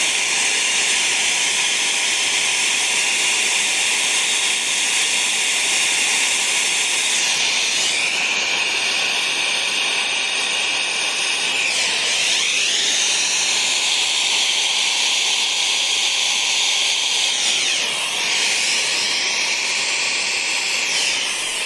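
Air-acetylene turbo torch burning with a steady hiss as it heats a copper refrigerant line joint for brazing, slow to bring the joint up to heat with acetylene alone. Its tone sweeps down and back up a few times as the flame is moved.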